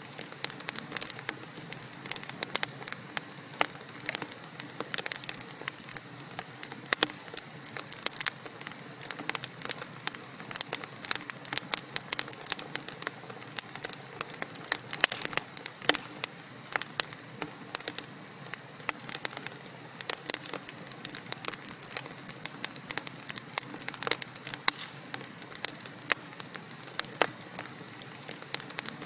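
Wood fire burning in a fireplace: a steady hiss with many irregular sharp crackles and pops from the burning logs.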